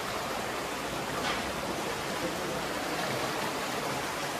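Flowing river water, a steady even wash of noise.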